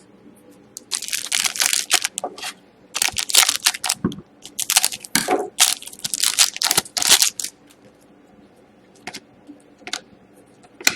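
Hockey trading cards and their pack wrappers being handled: a run of papery rustles and crinkles for several seconds, then a few light clicks.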